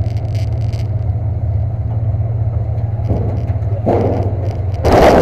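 Demolition derby truck's engine idling with a steady low rumble, heard from inside the stripped cab. Near the end, two short loud bangs on the sheet-metal body as people clamber over the hood.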